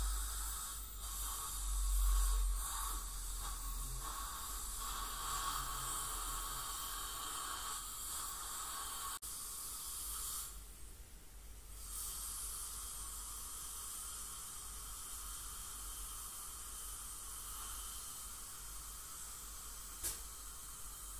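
Steady hiss of dental cleaning equipment working in a patient's mouth during teeth scaling; the hiss falls away briefly about ten seconds in, then resumes.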